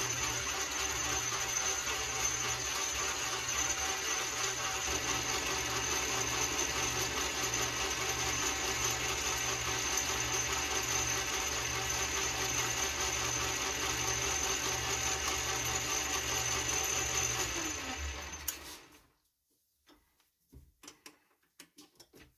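Small metal lathe running, its chuck spinning while a shaft is faced to length, with a steady machine hum and a slow low throb. About 18 seconds in the lathe is switched off and winds down with a falling tone, followed by a few light clicks.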